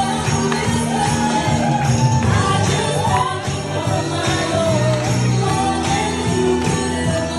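Upbeat Christmas music with jingle bells shaking in a steady rhythm over a melody.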